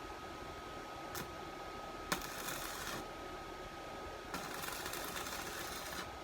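Stick-welding arc from a Makita MM 300A inverter welder: struck with a sharp crack about two seconds in, crackling and hissing for about a second, then struck again and crackling for nearly two seconds more.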